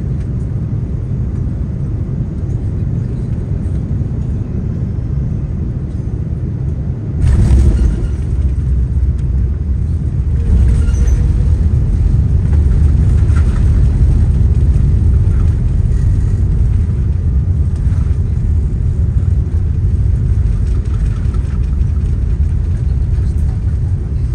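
Airbus A330-300 cabin noise on landing: a steady low engine and airflow rumble, then a sudden thump about seven seconds in as the wheels touch down. It is followed by a louder rumble from reverse thrust and braking on the rollout, easing off toward the end.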